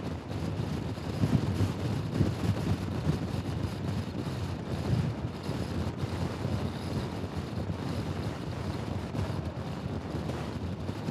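Wind buffeting the microphone while riding a Honda Forza scooter at speed: a low, gusty rush with road noise.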